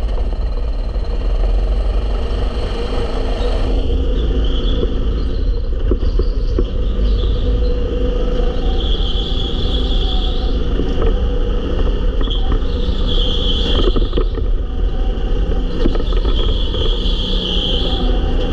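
Rental go-kart engine running at speed, heard from the driver's seat, with a high squeal coming and going several times.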